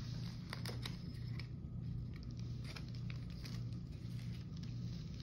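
Paper pieces and cards being handled and set down, with soft scattered rustles and light taps over a steady low hum.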